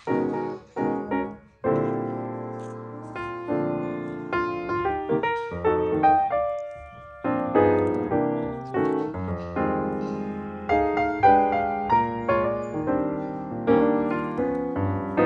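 Piano music: a run of struck notes and chords, each note dying away.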